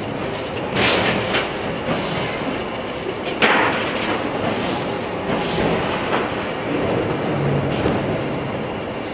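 Industrial production machinery running with a steady mechanical din and low hum, broken by several short hissing bursts, the strongest about three and a half seconds in.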